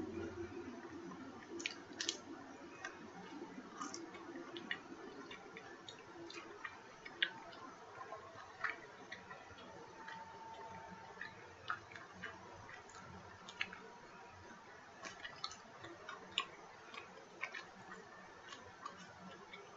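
Pizza being chewed close to the microphone: faint mouth noise with irregular small clicks and smacks.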